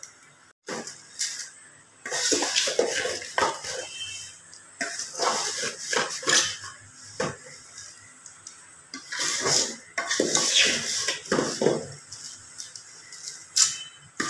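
Wooden spatula scraping and knocking against a metal pot in irregular strokes as thin, dry vermicelli is stirred and turned over while it roasts in a little oil over low heat.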